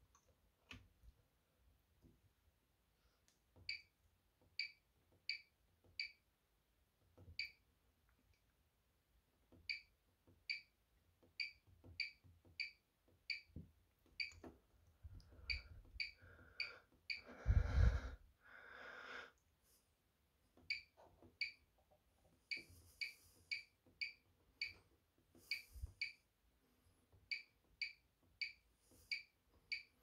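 Bosch Serie 6 washing machine's control panel beeping at each button press: a string of short, high single beeps, at times coming about two a second as settings are stepped through. About halfway through there is a brief, louder rustling thump.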